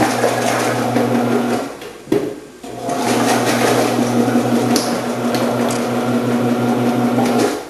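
Omcan HLC 300 vegetable processor's electric motor humming steadily while its slicing and dicing discs cut vegetables fed down the chute. It runs, stops for about a second with a sharp knock in the pause, then runs again and stops near the end.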